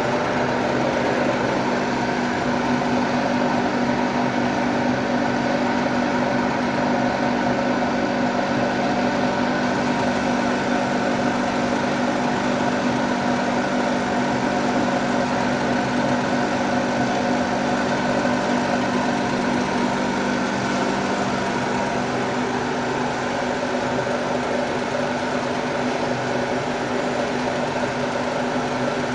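Namkeen fryer machine running, a steady, unchanging motor hum over a constant rushing noise.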